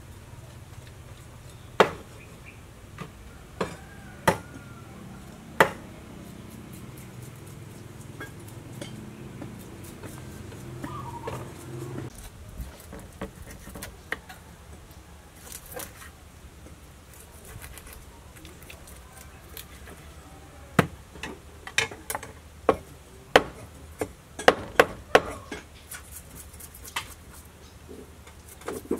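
Kitchen knife knocking against a wooden chopping board while small fish are cut and cleaned. There are single sharp knocks a second or two apart at first, then a quick run of knocks near the end.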